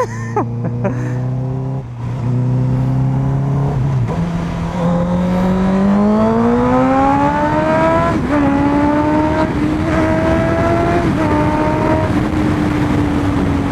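Honda CBR650F inline-four motorcycle engine running steadily for a few seconds, then accelerating with its pitch climbing. About eight seconds in there is a quick dip at a gear change, and it then holds a steady cruise.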